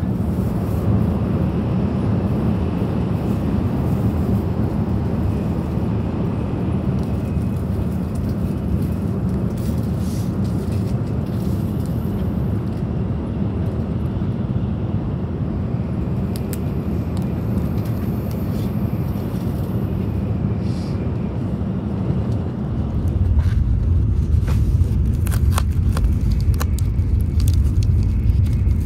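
Steady low rumble of a Shinkansen bullet train heard from inside the passenger cabin. About three-quarters of the way through it turns louder and deeper. Near the end a chopsticks packet crinkles and crackles in the hands.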